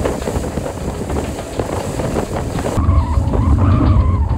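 Strong wind buffeting the microphone aboard a sailboat under way in rough water, with water rushing past the hull. About three seconds in, the sound changes abruptly to a deeper, heavier wind rumble.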